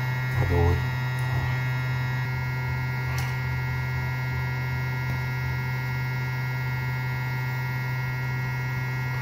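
Steady electrical mains hum with a buzzy edge that holds at one pitch throughout, with a light click about three seconds in.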